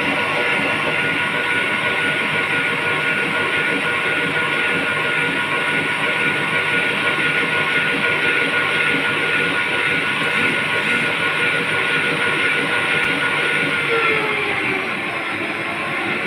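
Electric mixer motor running steadily with a whine over its hum; about fourteen seconds in the pitch drops as the motor slows.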